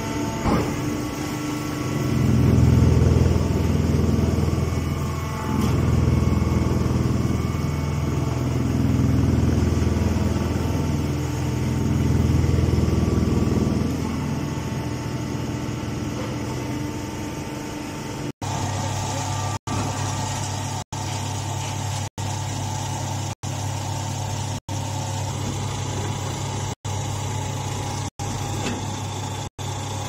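Stationary hydraulic straw baler and its feed conveyor running: a low machine hum that swells and eases several times in the first half, then holds steady. In the second half the sound cuts out briefly about every second and a quarter.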